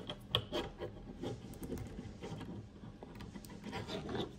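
Small plastic action-figure parts being handled and fitted: a run of irregular light clicks, taps and rubbing.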